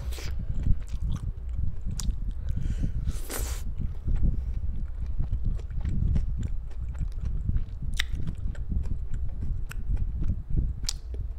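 Close-miked chewing of a mouthful of BBQ pork and pineapple from a skewer: steady wet mastication with sharp mouth clicks here and there and a short hiss about three seconds in.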